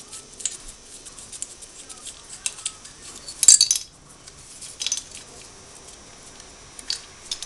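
Small metallic clicks and clinks of hand tools and parts being handled at a motorcycle's cylinder head. A louder metal clatter comes about three and a half seconds in.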